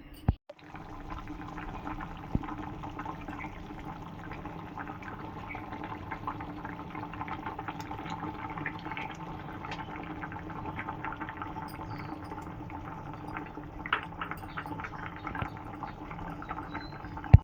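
A pan of curry bubbling and crackling steadily as it simmers, over a steady low hum. Sharper clicks stand out a couple of seconds in and near the end.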